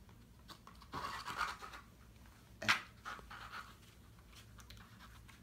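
Pages of a glossy photo booklet being turned by hand: paper rustling in a few bursts, with one sharp page flick about halfway through.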